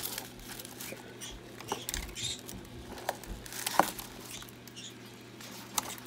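Paper muffin cups and napkins crinkling and rustling as hands handle a small plastic container, with a few light clicks.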